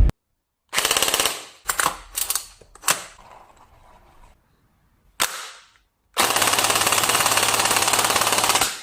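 Rapid automatic gunfire in bursts: a short burst about a second in, a few brief ones after it, a single short one past the middle, then a long sustained burst of rapid shots for the last two and a half seconds that cuts off.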